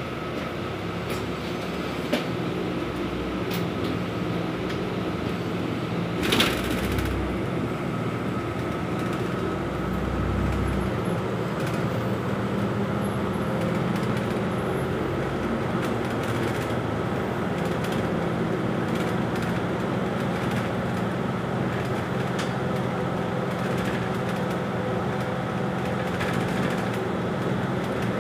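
Cabin noise inside a city bus under way: the engine and road noise drone steadily, with a faint steady whine above it. A single sharp knock or rattle sounds about six seconds in.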